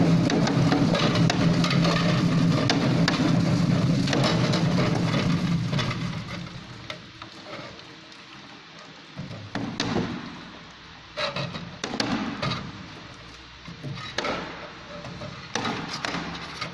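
Drum potato peeling machine running with a steady motor hum and dense rattling of potatoes tumbling inside the drum. About six seconds in it goes much quieter, leaving separate knocks of potatoes dropping out of the discharge chute.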